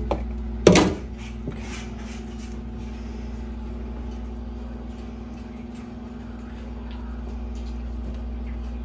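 Metal kitchen scissors set down with a sharp clatter on a stainless-steel sink, under a second in, then faint small sounds of hands picking feathers off a skinned quail over a steady low hum.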